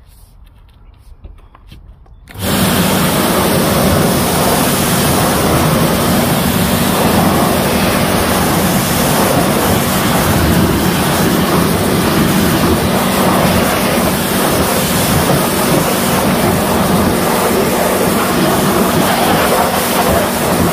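Pressure washer starting about two seconds in and running steadily, its jet of water spraying a car's alloy wheel and tyre to rinse off wheel cleaner; a steady hum sits under the hiss of the spray.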